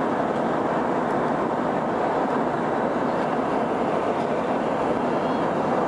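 Steady cabin noise inside a Boeing 707 airliner: an even, unbroken rush of engine and air noise with no change in level.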